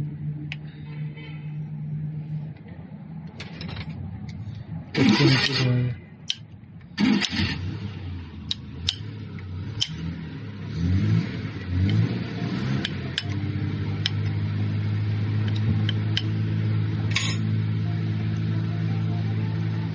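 Diesel engine running unevenly, with two loud noisy bursts about five and seven seconds in, then revving up briefly and settling into a steady idle from about thirteen seconds in: the engine has started and is running.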